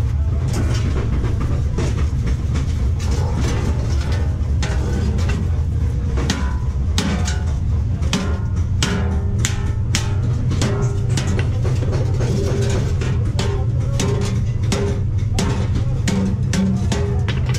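Hammer blows on a rusty steel sheet as it is bent into the side of a wheelbarrow tray: repeated metallic strikes at an uneven pace of roughly two a second, over a steady low hum.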